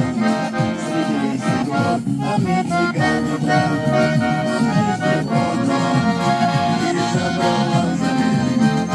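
Garmon (Russian button accordion) playing an instrumental passage of a chanson tune: quick melody notes and chords over a moving bass line, with a brief break about two seconds in.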